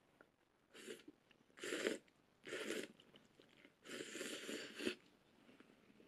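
A person eating noodles, slurping them in four short, noisy bursts; the last, about four seconds in, is the longest at about a second.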